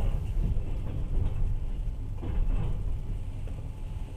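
Passenger train running, heard from inside the carriage: a steady low rumble of the wheels and car body.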